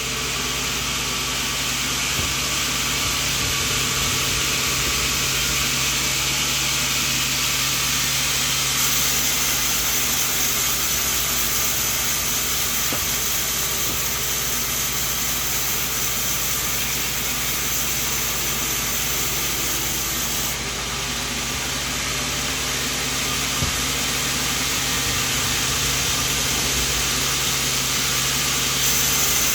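Band sawmill running and sawing coconut wood: a steady hiss over a low motor hum, its upper part changing in tone about nine seconds in and again about twenty seconds in.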